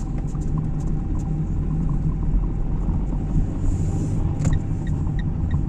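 Car cabin rumble while driving slowly: steady low engine and road noise heard from inside the car. A light, regular ticking comes in near the end, about three ticks a second.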